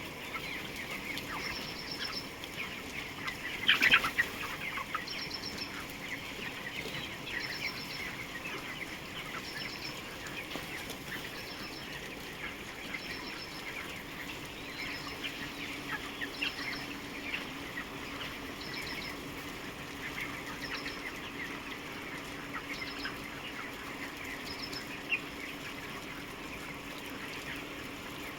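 A large flock of chickens calling all at once, a dense steady chatter of peeps and clucks, with a brief louder flurry about four seconds in. A faint high chirp repeats at an even pace, about every second and a half.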